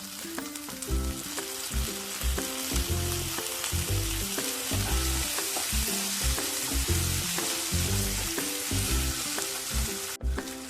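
Onions and freshly added tomato sizzling in hot oil in a pan, with a steady hiss throughout. Background music with low bass notes plays underneath.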